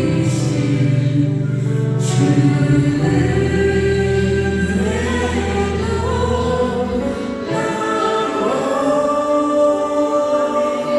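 Choir singing a Korean Christian praise song in sustained chords.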